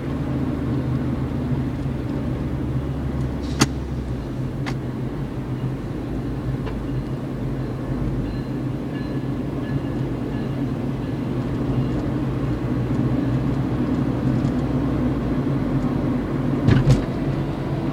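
Steady low hum of a car driving, heard from inside the cabin. There are a couple of sharp clicks about three and a half seconds in and a short knock near the end.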